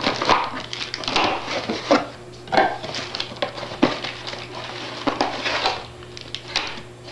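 Rustling of cardboard and plastic packaging and light knocks as accessories are pulled out of a camcorder box and set down on a wooden table, in irregular bursts.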